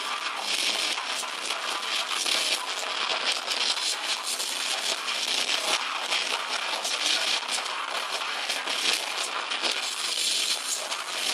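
Live metal band playing loud: distorted electric guitars, drums and shouted vocals into a microphone. The recording is overloaded and crackly, with no bass.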